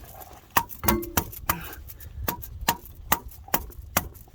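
Hammer striking a metal tool driven into the grease-packed pilot bearing bore of a BMW E39 engine's crankshaft: about ten sharp metal strikes at an uneven pace, some ringing briefly. This is the hydraulic grease method, where each blow pressurises the grease to push the old pilot bearing out.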